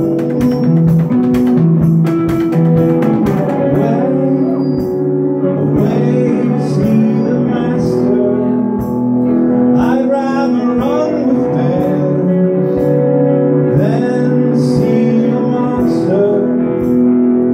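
Live indie rock band playing: acoustic and electric guitars over drums, with a man singing. The drum strokes are thickest in the first few seconds.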